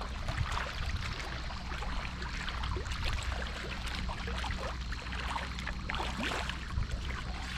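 Waterside ambience: a steady low hum under a continuous hiss of water and wind, with faint scattered ticks.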